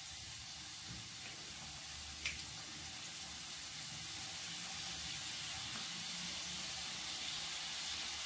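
Modaks deep-frying in hot oil in a kadhai on a low flame: a steady sizzling hiss of bubbling oil that gets a little louder toward the end, with one light tap about two seconds in.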